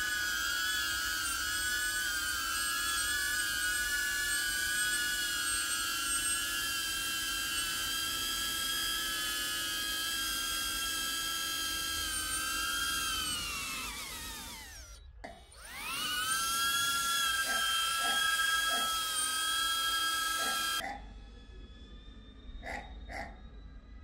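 DJI Avata drone's motors and ducted propellers whining at a steady high pitch. About thirteen seconds in, the whine falls in pitch and stops, spins back up about two seconds later, then cuts off suddenly and is followed by a few faint clicks.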